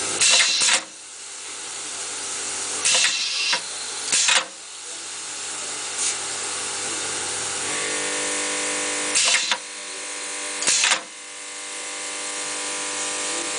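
Electro-pneumatic wire stripper cycling: six short, sharp bursts of air from its valves and cylinders in three groups, over a steady hum.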